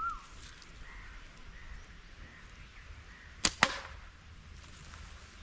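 A slingshot shot: a sharp snap as the bands release, then a second crack about a fifth of a second later as the ball lands down range.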